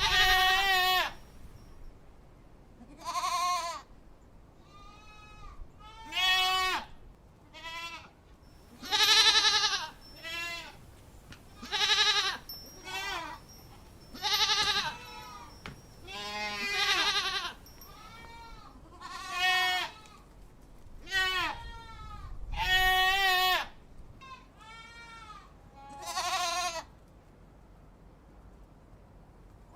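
Goats bleating over and over: about fifteen separate bleats, each a second or two long and quavering in pitch, some loud and some fainter, with short pauses between them.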